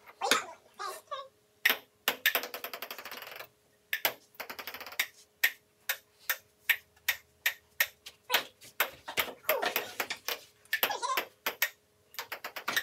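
Table tennis ball clicking sharply off the paddles and table during a rally, the hits coming at an uneven pace with a couple of quick runs of rapid clicks.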